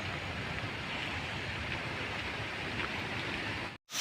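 A steady, even rush of light rain and running water, cut off suddenly near the end.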